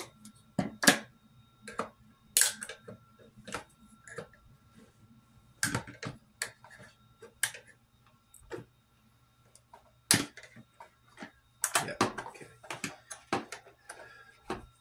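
Irregular sharp plastic clicks and knocks from a Vikeri trail camera's hard plastic case and battery tray as the tray is worked loose from its compartment, with a dense run of clicks near the end.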